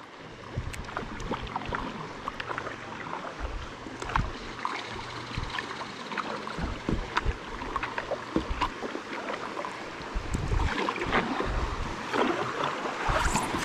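River water splashing and trickling around a paddleboard, with many small splashes and occasional low thumps, the splashing getting louder in the last few seconds.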